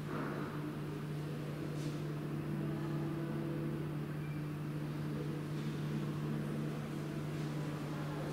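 Steady low hum with one constant pitch and a few fainter tones above it, with three or four faint light clicks.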